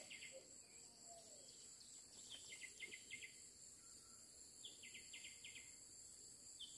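Faint forest ambience. A steady high insect drone runs throughout. A short chirping call, a quick falling note followed by three or four rapid pulses, repeats about every two seconds.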